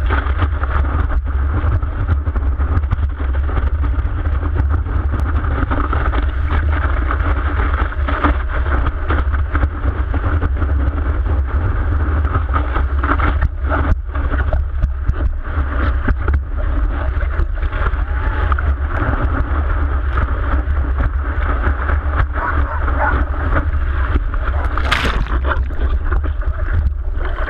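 Continuous rush and splash of seawater around a surfboard riding through whitewater, heard muffled through a camera on the board's nose, with a heavy low rumble of water and wind buffeting the camera. A sharper splash stands out near the end.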